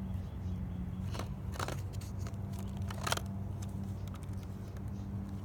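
A few sharp clicks and knocks from handling a Nerf N-Strike Modulus Ionfire blaster and fitting its attachments, over a steady low hum.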